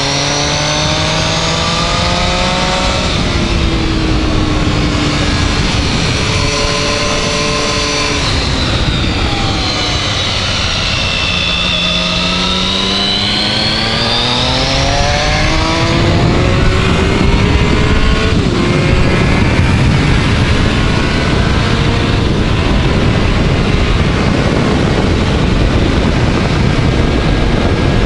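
Triumph Speed Triple's three-cylinder engine revving up and falling back again and again as the bike is ridden hard through a run of corners, its pitch sweeping up under throttle and down into each bend. From about halfway, a loud steady rushing noise covers most of the engine as the bike accelerates onto a straight.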